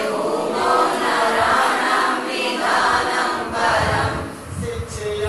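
A class of women singing a prayer together in unison, unaccompanied, with long held notes.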